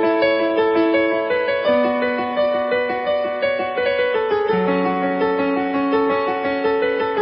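Intro music on piano or electric keyboard, playing sustained chords whose lowest note steps down twice, about two and a half seconds apart.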